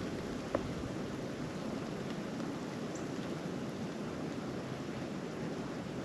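Steady wind in a snowstorm, an even rushing noise with no let-up, and one small sharp click about half a second in.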